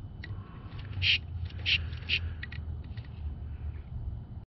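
Hand-operated Mityvac vacuum pump being squeezed to pull vacuum on a new EVAP purge solenoid, a short sharp hiss-click with each stroke, several about half a second apart. A steady low hum runs underneath.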